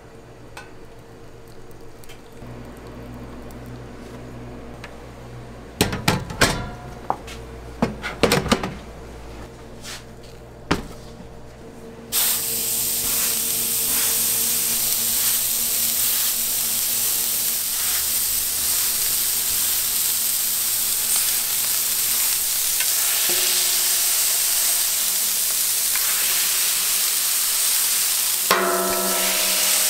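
Ground-beef balls and patties sizzling steadily on a hot flat-top griddle; the sizzle starts suddenly about twelve seconds in, after a few knocks and clatters of metal kitchenware. Near the end a brief metallic scrape sounds as a stainless smash press flattens a patty on the griddle.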